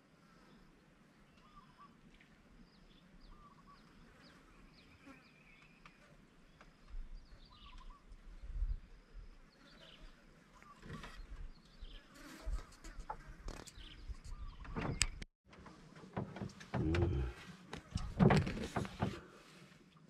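Faint, repeated short high chirps of small wildlife calling over a quiet background. From about seven seconds in, irregular knocks, clicks and rustles of handling gear on a wooden boat come in and grow louder, with a brief cut-out about fifteen seconds in.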